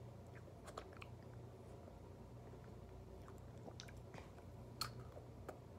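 Faint mouth sounds of a person eating frozen ice pops: sucking and biting on the ice with scattered small wet clicks. The sharpest click comes near the end.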